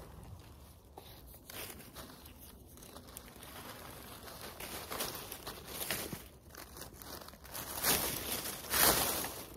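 Dry fallen leaves rustling and crinkling close by as a hand trowel digs in leaf litter and soil and a cat steps through the leaves; the rustling gets louder near the end.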